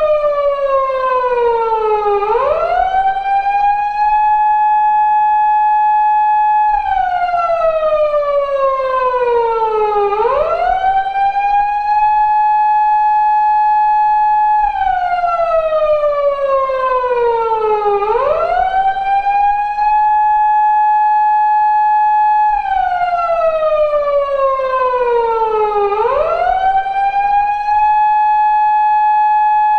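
Recreated Japanese police car wail siren, the tone used on 170- and 180-series Toyota Crown patrol cars, cycling about every eight seconds. Each cycle holds a high tone for about three seconds, falls slowly over three to four seconds, then sweeps quickly back up.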